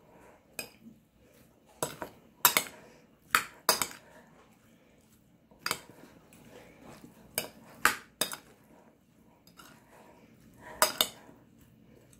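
Metal spoon stirring diced fruit salsa in a white ceramic bowl. It clinks sharply against the bowl about a dozen times at an uneven pace, some strikes in quick pairs.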